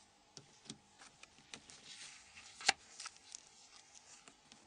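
Faint scattered clicks and light scraping of plastic as a phone's key mat is eased out with a plastic opening tool, with one sharper click a little past halfway.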